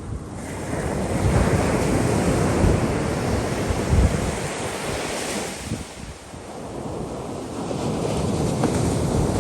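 Heavy ocean surf breaking and rushing up the beach, swelling about half a second in, easing around six seconds, then building again with the next wave. Wind rumbles on the microphone.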